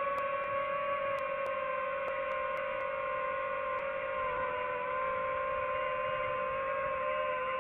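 DJI FPV drone's propellers and motors whining steadily in flight, a steady pitched hum that wavers slightly in pitch.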